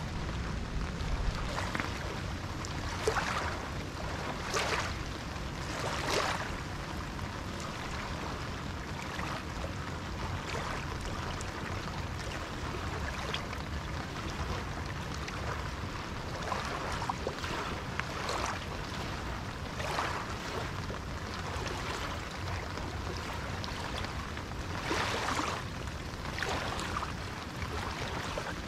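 Small waves lapping and splashing against shoreline rocks and pebbles, in irregular splashes every second or two, over a steady background hiss.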